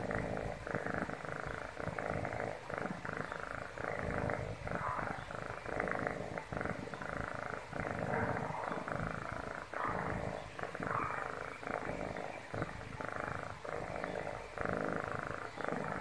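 A young orange-and-white cat purring steadily and close up, the purr swelling and easing with each breath in and out.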